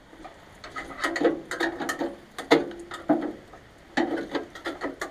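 Ratchet wrench clicking in short bursts as bolts are run in, with light metallic clinks from the tool and hardware.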